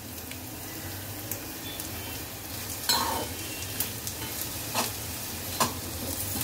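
Metal spoon stirring grated jaggery into ghee-roasted dry fruits in a metal pan over heat: a steady sizzle of the hot ghee, with the spoon knocking against the pan a few times. This is the jaggery being cooked into the sweet modak filling.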